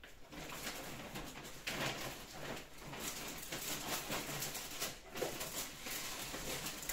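Rustling and handling noise of packed items being moved about in a bag, a dense crackle of small irregular clicks and scrapes.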